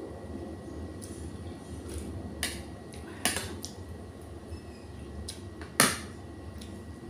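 A metal spoon clinking against a metal soup bowl while eating: three sharp clinks, the last and loudest about six seconds in.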